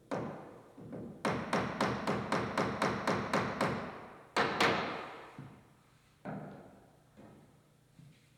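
Hammering: a single knock, then a quick steady run of about ten sharp blows, two heavier blows, and a few lighter taps, each with a short ring.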